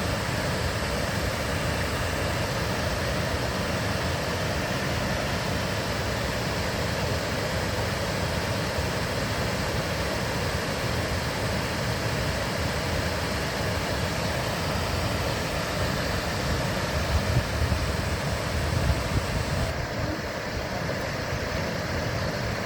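Ganja river water rushing and splashing in a steady, unbroken roar of noise, with a few brief low bumps about three-quarters of the way through.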